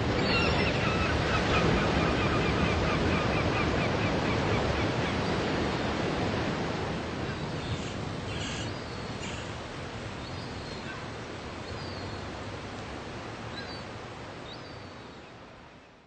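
Sea surf breaking on rocks and a pebble beach: a steady wash of crashing water and spray that slowly sinks and fades out near the end.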